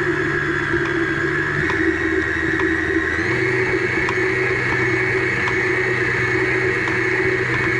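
Electric stand mixer running steadily, its flat beater turning through stiff cookie dough as the last of the flour is worked in, with a constant motor hum and whine.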